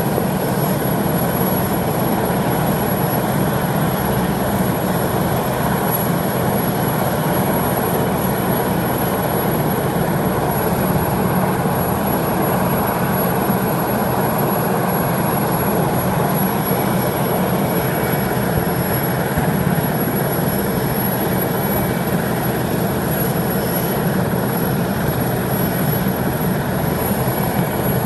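Westland Sea King rescue helicopter running steadily on the ground: the turbine engines and turning rotors make a continuous, even noise with a faint high whine.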